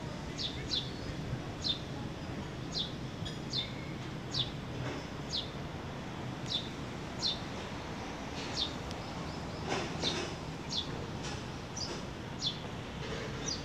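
A small bird chirping over and over: short, high chirps that drop in pitch, often in quick pairs, about one a second, over a steady low background rumble.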